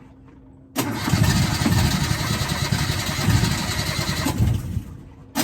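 Yanmar 3GM30F three-cylinder marine diesel being cranked by its starter motor, turning over without starting. It kicks in suddenly under a second in, dies away near the end, and a fresh cranking attempt starts right at the close.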